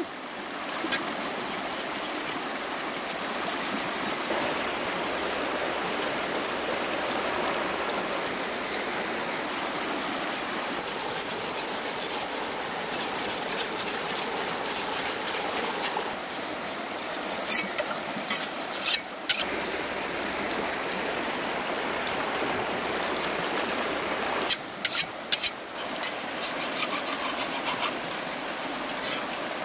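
Shallow river rushing steadily over rocks, with a knife blade being rubbed back and forth on a wet river stone to sharpen it. A few sharp clicks stand out, in one cluster past the middle and another near the end.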